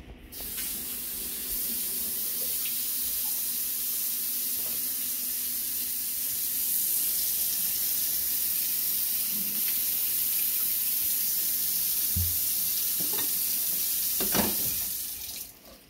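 Kitchen tap running steadily into a stainless steel sink, the stream splashing over a peeled potato and a vegetable peeler being rinsed, with a couple of light knocks near the end. The water shuts off shortly before the end.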